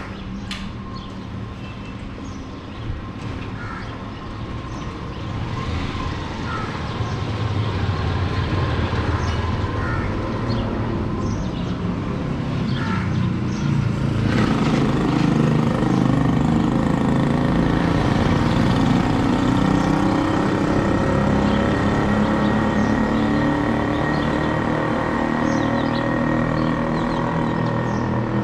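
Street traffic: vehicle engines running and passing in a steady low rumble. It grows louder after several seconds and gets heavier from about halfway through, with a few small clicks early on.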